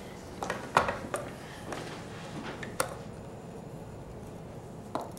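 A few sharp plastic clicks and knocks as a small food processor's lid and bowl are taken off its base, the loudest about a second in.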